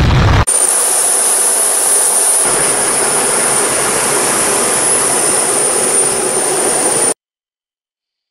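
Fighter jet engine roaring at takeoff power, cut off abruptly half a second in. Then steady jet noise, a rush with a thin high-pitched whine, which ends suddenly in silence about seven seconds in.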